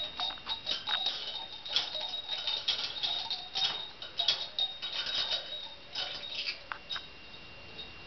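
A parrot knocking its new bell toy about, setting off rapid, irregular clinks and tinkles of a small metal bell with a high ringing tone, along with clatter from the toy. The jingling thins out near the end.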